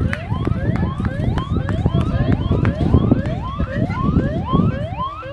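Electronic siren sounding a fast yelp: short rising sweeps repeated about two or three times a second, over a low rumbling noise.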